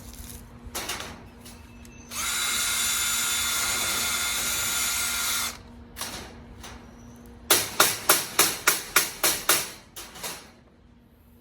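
Hand-held power tool motor spinning up and running steadily with a whine for about three seconds. Then, near the end, a quick run of about ten sharp knocks.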